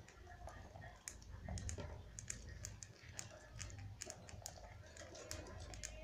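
Budgies nibbling and husking seeding grass: a quick, irregular run of small sharp clicks and crackles from their beaks working the grass stems and seed heads.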